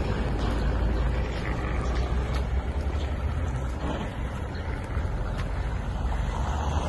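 Steady low rumble of roadside traffic noise, with no single vehicle standing out.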